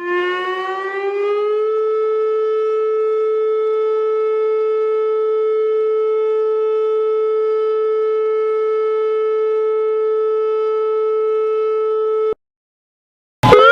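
Civil-defence-style warning siren tone that rises in pitch for about a second and a half, then holds one steady tone until it cuts off abruptly about twelve seconds in. A second siren tone starts rising just before the end.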